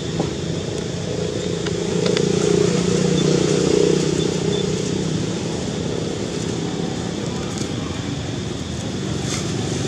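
Motor vehicle engine running as a steady low drone, swelling from about two seconds in and easing off after about four seconds.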